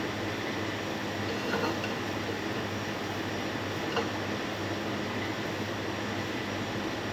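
Steady kitchen background noise, a constant hum and hiss, with two light clicks about one and a half and four seconds in.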